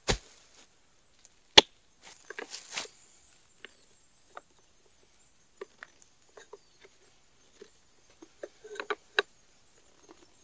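A heavy log dropped onto leaf-covered ground with a thump, a sharp knock about a second and a half later, then rustling dry leaves. After that, a hand auger bit is twisted into a tree stump: the wood crunches and creaks in scattered short clicks, bunching up near the end.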